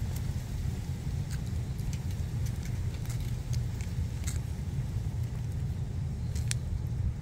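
Stray cats licking puree from a squeezed treat tube, with scattered small wet clicks, over a steady low rumble.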